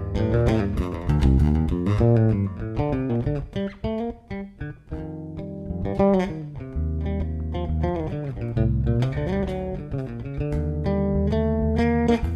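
Background music led by plucked guitar over a bass line, dipping quieter for a moment about four seconds in.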